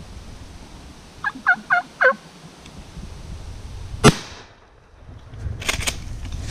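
Four quick turkey yelps, then about four seconds in a single loud shotgun blast fired at a wild turkey tom from a few yards away, followed by the wing beats of the shot bird flopping on the ground.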